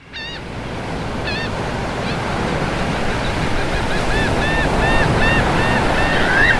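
Ocean surf washing on a beach as a steady dense rush, with birds calling over it. A few scattered calls come first, then from about halfway a steady run of short calls that rise and fall in pitch, two or three a second.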